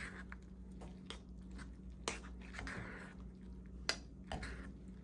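A spoon stirring rehydrating freeze-dried rice, black beans and chicken in broth in a bowl: faint soft squishing, with a sharp click of the spoon about two seconds in and again near the end.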